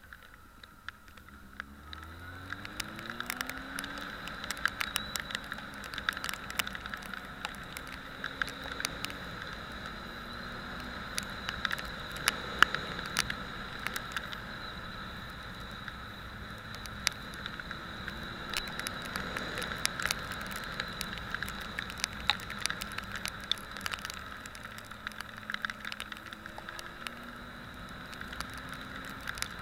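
Motorcycle under way, the engine's revs climbing steeply about two seconds in and rising again several times later, over a steady hiss with scattered crackles and clicks.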